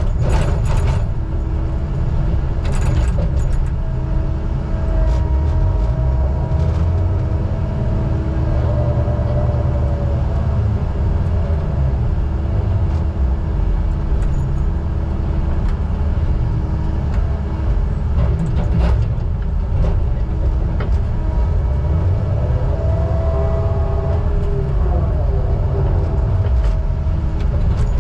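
An engine running steadily with a low rumble and a constant hum, heard close up as from inside a cab. A fainter whine rises and falls briefly near the end.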